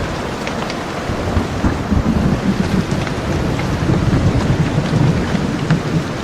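Steady heavy rain falling, with a low rumble of rolling thunder swelling underneath through the middle.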